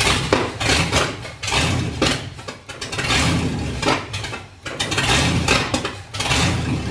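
Ford 351 Windsor V8 catching and running roughly, surging and sagging about once a second as the throttle is worked at the carburetor, struggling to keep running. The owners suspect dirt in the carburetor, possibly from diesel left in the fuel line.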